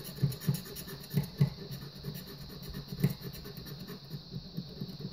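Scratch-off lottery ticket being scraped with a flat metal edge: short, irregular scratching strokes, a few of them louder.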